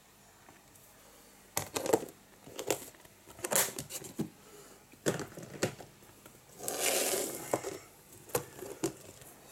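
Handling noises: a series of sharp clicks and knocks, with a brief rustling crinkle about seven seconds in, as objects are moved about on a wooden surface.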